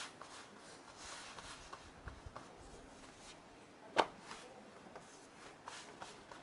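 Hands pressing and stretching a round of dough on a floured marble slab: faint soft rubbing and patting, with one sharp slap about four seconds in as the dough is lifted and handled.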